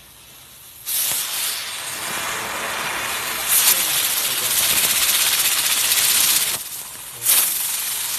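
Small novelty ground firework hissing as it burns and throws sparks. The hiss starts suddenly about a second in and grows louder. It drops away briefly near the end, then picks up again.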